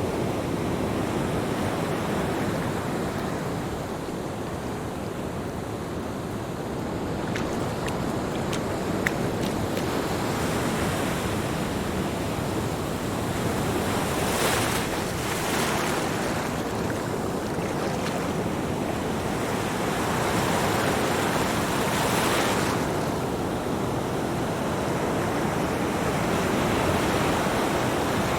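Ocean waves breaking and washing up a beach, a continuous surf noise with hissing swells as waves spill in, about 14 and 22 seconds in. Some wind on the microphone.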